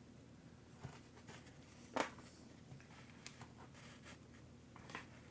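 A few faint, scattered clicks and taps of small parts and hand tools being handled, the clearest about two seconds in.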